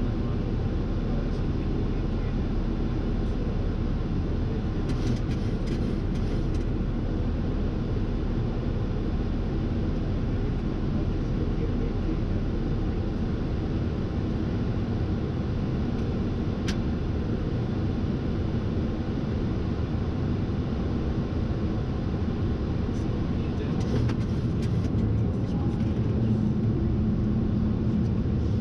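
Steady rushing noise inside an airliner's flight deck on approach, from airflow and engines, even and low-pitched throughout, with a few faint ticks.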